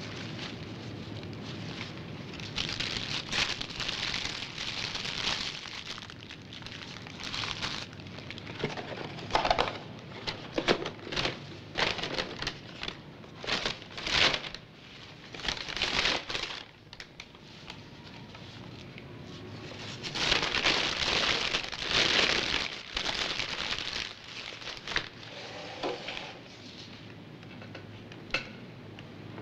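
Paper food wrappers and a white paper takeout bag crinkling and rustling in the hands, in irregular bursts with pauses between, as the wrappers are handled and the bag is crumpled up.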